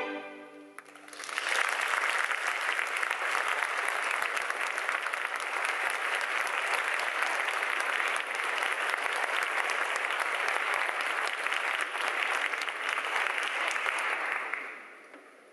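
The last sustained chord of a string orchestra dies away in the first second, then the audience applauds with steady clapping that fades out near the end.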